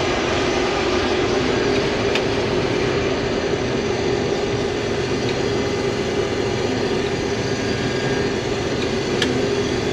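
Combine harvester running steadily while cutting wheat: a constant machinery rush with one held tone through it and no change in pitch, and two faint ticks, one about two seconds in and one near the end.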